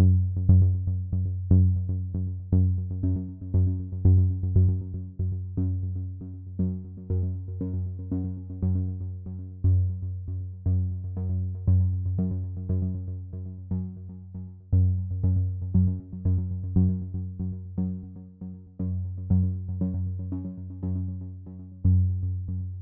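Background electronic music: synthesizer over a steady beat and a deep bass line.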